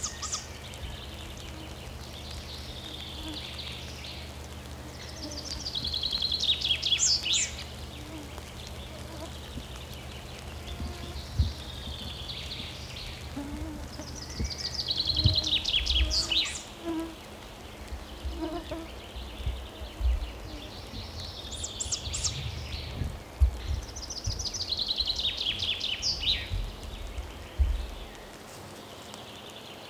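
A small songbird singing a short, quickly trilled phrase that falls in pitch, repeated every few seconds. Under it is a low steady hum and a few dull thumps.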